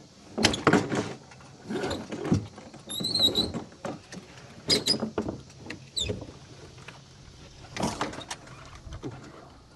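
A sail being hoisted by hand: a halyard hauled in about six separate pulls, the line rasping through a block, with a short high squeak about three seconds in.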